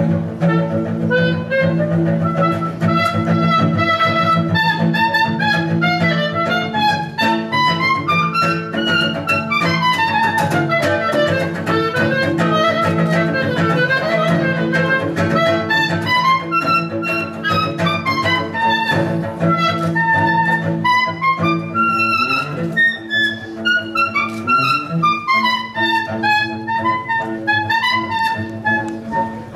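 Instrumental music: a melody running up and down in quick notes over sustained low notes.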